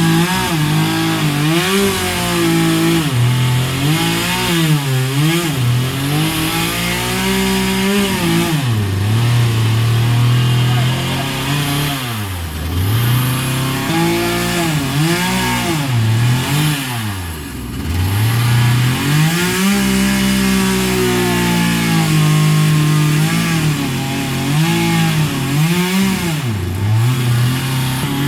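Chainsaw engine running hard, its pitch repeatedly rising and sagging, and dropping almost to idle twice, about halfway through and again a few seconds later.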